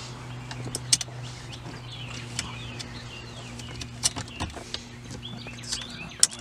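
Scattered small metallic clicks and taps of nuts being started by hand on the studs of a shifter mounting plate.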